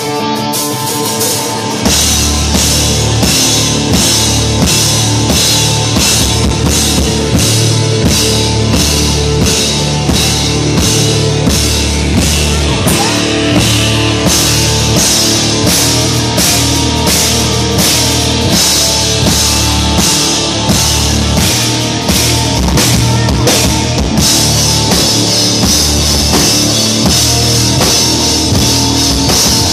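Rock band playing live with electric guitars, bass and drum kit. A sustained guitar chord rings alone at first, then about two seconds in the drums and bass come in with a steady beat.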